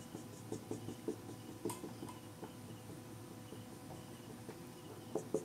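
Faint marker tip on a whiteboard, tracing lines: a scatter of light ticks and short rubbing strokes, busier near the start and near the end.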